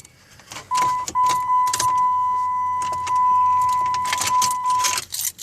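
Car keys jangling and clicking while a steady, high electronic beep sounds for about four seconds, briefly breaking off just after it starts.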